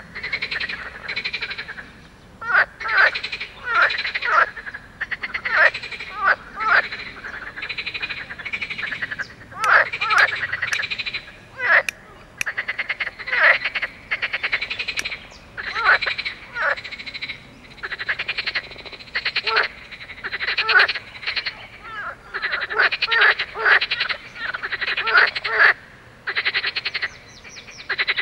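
A chorus of green water frogs calling: overlapping bursts of rapid, rattling croaks follow one another with short gaps throughout.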